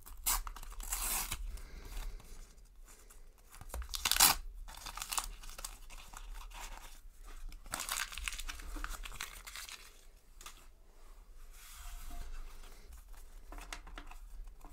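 Shiny foil sticker packets being torn open and their wrappers crinkled by hand, in several rustling bursts, the sharpest rip about four seconds in.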